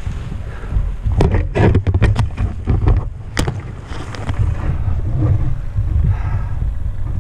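Eos 150 paramotor engine idling, a steady low rumble, with several sharp knocks and clatters between about one and three and a half seconds in.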